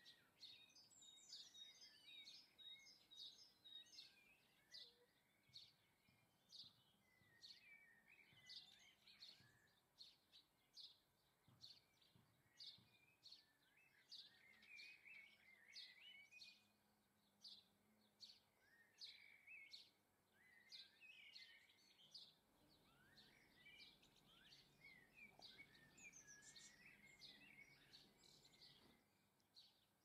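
Faint chirping and twittering of small garden songbirds: many short high chirps, a couple a second, with runs of twitter between them.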